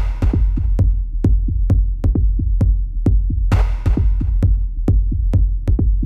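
Background electronic music with a steady drum-machine beat of about two beats a second over heavy bass, with a cymbal-like crash at the start and again about three and a half seconds in.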